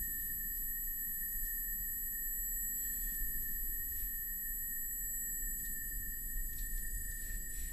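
Eerie horror-film drone: several steady high-pitched tones held together over a low rumble, with a few faint clicks, easing off slightly near the end.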